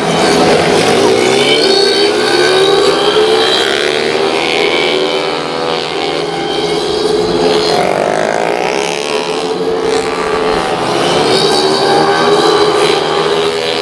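Several 115 cc automatic scooter engines revving hard and passing, their overlapping pitches rising and falling as they race.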